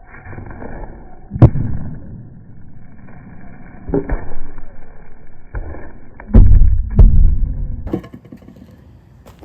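Heavy wooden knocks and thuds as a deeply scored 2x6 board is worked to break it apart lengthwise: a sharp knock, another a few seconds later, then two loud thuds close together and a lighter one.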